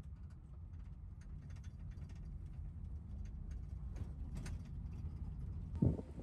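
Low road rumble inside a moving car's cabin, with light scattered clicks and rattles. A single loud thump near the end.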